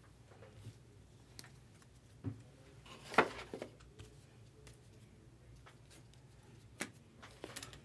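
Light handling noises on a tabletop: a few scattered taps, clicks and rustles, the sharpest about three seconds in and another pair near the end.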